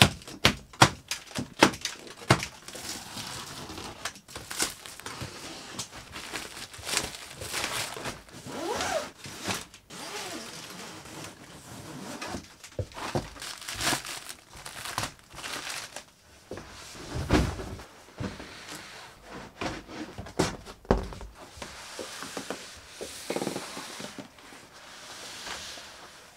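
Packaging being stripped off a boxed 3D printer. Several sharp snaps come in the first couple of seconds as the plastic straps are cut. Then plastic wrap crinkles and tears, with a couple of heavy cardboard thumps about two-thirds of the way through.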